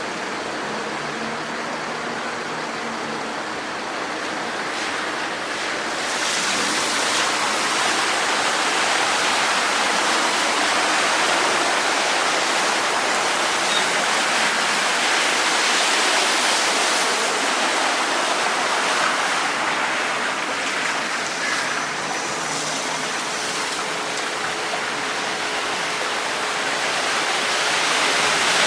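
Steady rush of the River Welland running in flood, full to the top of its banks. It gets louder about six seconds in.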